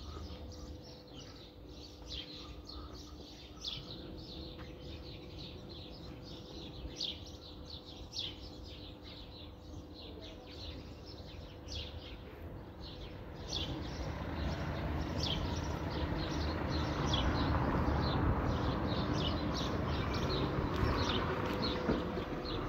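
Small birds chirping repeatedly, the chirps coming thicker in the second half, over a low rushing background that grows louder about two-thirds of the way through.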